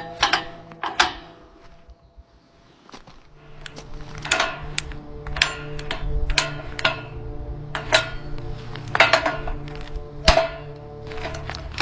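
Sharp knocks and clatter at an irregular pace, from construction work, over steady background music. The strongest knock comes near the end.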